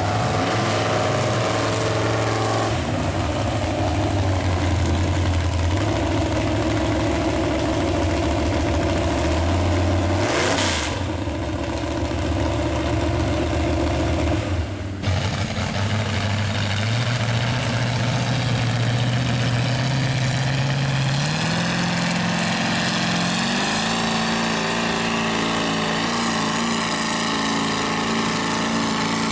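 Mud truck engines running hard and revving in a mud pit, the engine pitch shifting up and down as the throttle changes. There is an abrupt break about halfway through, and the revs climb in steps near the end.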